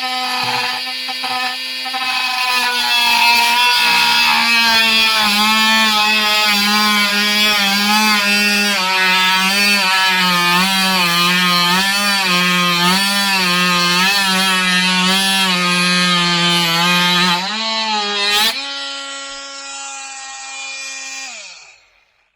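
Makita TM30D cordless oscillating multi-tool running and cutting, its whine dipping and recovering in pitch over and over as the blade is loaded. Near the end it runs free at a steady, slightly higher pitch, then winds down and stops.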